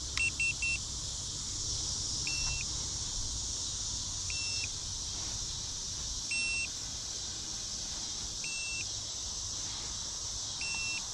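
Electronic beeping from the RC helicopter's radio gear: three quick beeps, then a single short beep about every two seconds, as return-to-home is engaged. A steady chorus of insects goes on underneath.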